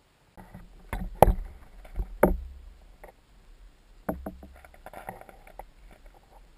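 Irregular hollow knocks and thumps over a low rumble, picked up underwater by the camera, the loudest pair about a second in and more knocks from about four seconds in.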